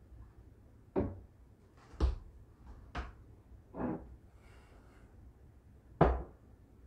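Knocks and clatter of containers being handled on kitchen cupboard shelves: about five sharp knocks roughly a second apart, the loudest near the end.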